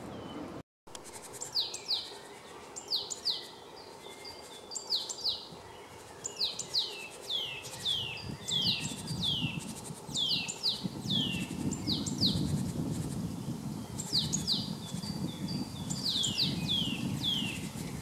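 Male great tit singing: a repeated two-note phrase, each phrase ending in a sharp note that sweeps down steeply in pitch, given in runs of several phrases with short pauses between them.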